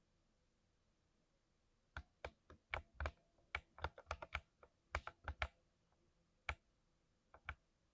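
Mechanical keyboard with freshly lubed switches being typed on: irregular, separate keystrokes that start about two seconds in and go on until near the end.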